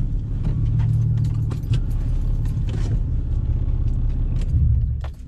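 Single-turbo Nissan G35's VQ35 V6 idling with a steady low rumble, with scattered light clicks and jingles of keys; the engine sound drops away about five seconds in as the car is shut off.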